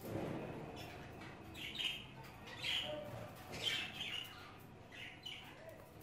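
Pet budgerigars chirping in their cage: short chirps, about one a second.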